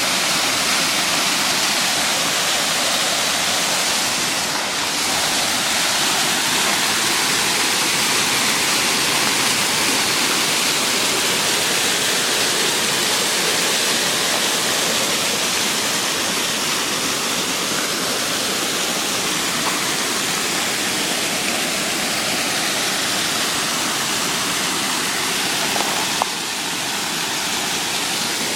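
Waterfall pouring steadily into a creek pool, a constant, full rushing of water.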